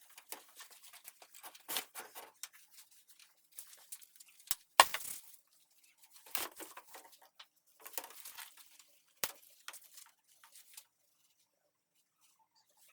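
Scattered rustling and scraping with several sharp clicks as objects are handled; the loudest click comes about five seconds in.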